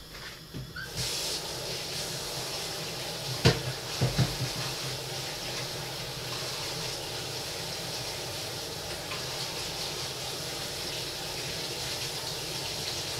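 Kitchen tap running into a sink: a steady rush of water that starts abruptly about a second in. A few sharp knocks come a few seconds in.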